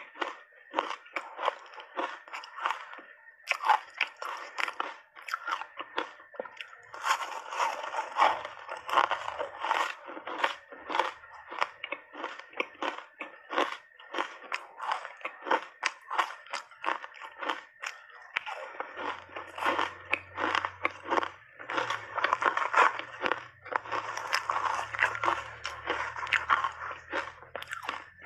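Ice chunks coated in matcha powder being bitten and chewed: a dense, continuous run of crisp crunching and crackling, heavier in two long stretches.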